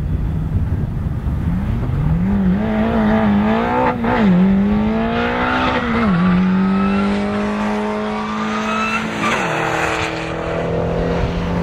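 A drag racer's engine accelerating hard down the strip at full throttle, its pitch climbing and then dropping sharply at three upshifts, about four, six and nine seconds in.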